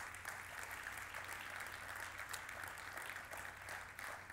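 Congregation clapping: a steady round of applause from many hands.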